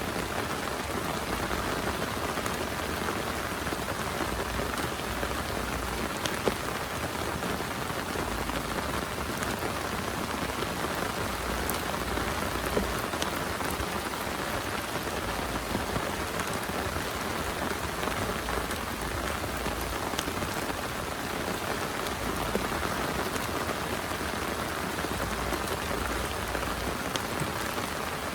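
Steady heavy rain falling, with scattered sharper drop hits.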